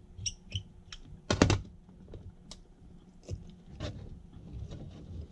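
Small metal clicks and taps of a wristwatch being taken apart on a metal tray, with one louder metallic clatter and brief ring about a second and a half in, as a tool or small part is set down on the tray. Lighter scattered clicks follow as the steel caseback and watch are handled.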